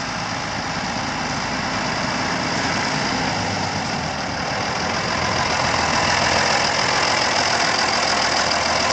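Deutz D7506 four-wheel-drive tractor's air-cooled six-cylinder diesel running steadily at low speed as the tractor drives by, getting louder as it comes close about halfway through.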